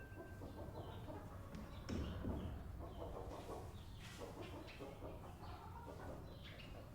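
Chickens clucking faintly in short, irregular calls.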